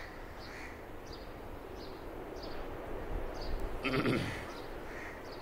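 A single animal bleat, wavering in pitch, about four seconds in, over a faint outdoor hiss with a small bird giving short high chirps roughly every half second.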